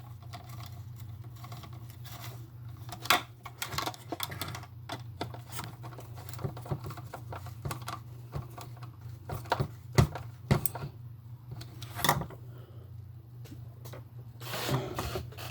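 Scattered small clicks and taps of plastic toy-car parts being handled and fitted by hand, with a few sharper knocks, over a steady low hum.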